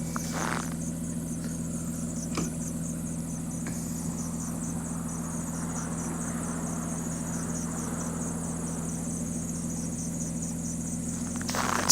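Steady low hum with several level tones from the parked Jaguar car, the constant noise it keeps making even when switched off, an unexplained electrical fault the owner cannot diagnose. High, fine insect chirring runs over it, with one faint click about two and a half seconds in.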